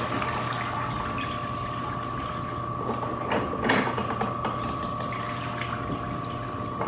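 A mop being wrung out in a plastic mop-bucket wringer: water running out of the mop into the bucket, with a few clicks and knocks from the wringer about halfway through.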